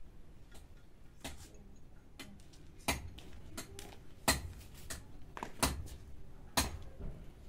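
Sharp knocks and clinks of metal dishes being handled. There are five louder strikes, spaced roughly a second and a half apart, with fainter clicks between them.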